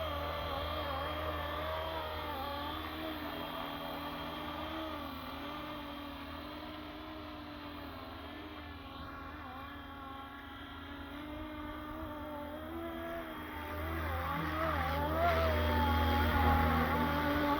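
Fly Wing FW450 RC helicopter in flight: the whine of its electric main motor and screaming direct-drive tail motor, the pitch wavering up and down as it holds and moves, growing louder about three-quarters of the way through.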